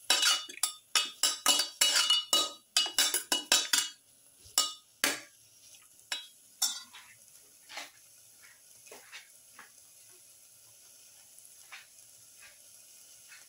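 Stainless-steel slotted spoon scraping and clinking against a steel pan as sliced onions, ginger and garlic are stirred. The strokes are quick, about three a second, for the first four seconds, then slow to a few single strokes. After that a faint sizzle of the onions frying in oil remains, with only the odd light tap.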